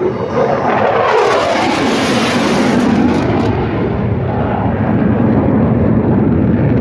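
Military demonstration jets flying past low and loud. The jet noise surges with a hiss about a second in, and its pitch sweeps downward as the jets go by, then settles into a steady rumble.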